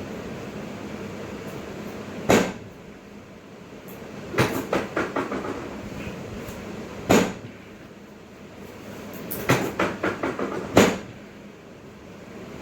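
Sharp knocks and clicks of a chiropractic adjustment for a tilted pelvis: a single hard thump, a quick run of smaller clicks, another thump, then a second run of clicks ending in a loud thump near the end.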